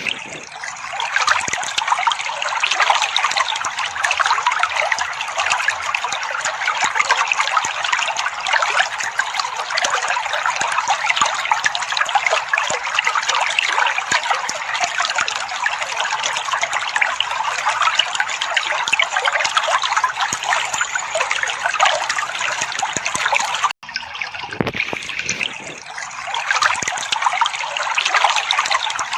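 Water trickling steadily, with a momentary break about four-fifths of the way through.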